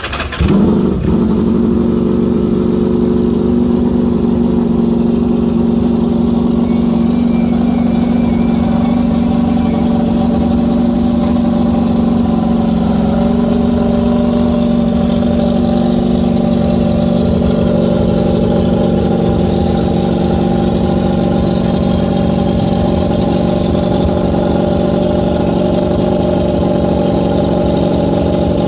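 Ducati Panigale V4 R superbike's V4 race engine being warmed up: it comes in loudly in the first second, then runs at a steady fast idle.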